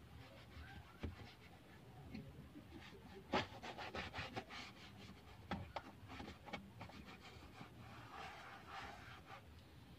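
Faint rubbing of a cloth pad wiping Armor All across a car's plastic dashboard. A run of quick scrubbing strokes comes in the middle, with a light knock or two.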